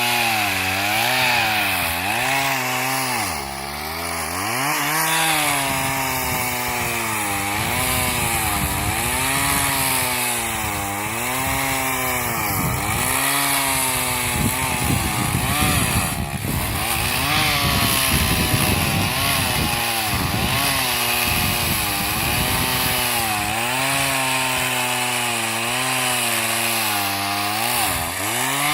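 Two-stroke chainsaw cutting a tree: the engine pitch dips and recovers about every second or two as the chain bites into the wood. There is a rougher, rattling stretch in the middle.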